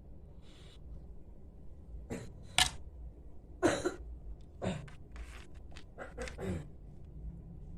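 Sleeping Labrador retriever snoring: irregular short, noisy breaths, one faint, then several louder ones in quick succession from about two seconds in.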